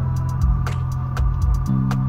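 Music with a steady drum beat over a held bass line that changes note near the end.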